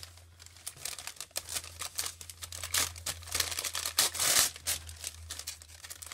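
Thin medicine-pamphlet paper being torn into strips and crinkled by hand: a run of irregular crackles and short rips. A low steady hum sits underneath.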